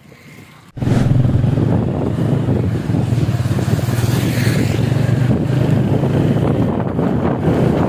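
Strong wind buffeting the microphone: a loud, steady rumble that starts suddenly about a second in. A motorcycle passes close by around four seconds in.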